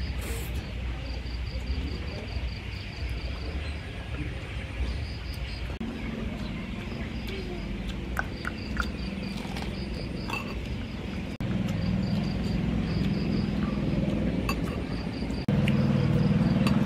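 Insects chirping in repeated trains of short, high pulses. Under them are close-up eating sounds: chewing, a few sharp clicks of bites or a spoon, and a low rumbling that gets louder in steps after about 6, 11 and 15 seconds.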